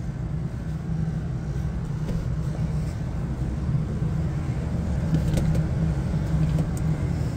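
Steady low mechanical hum of a rooftop HVAC unit running, with a few light clicks about five seconds in as an access door is handled.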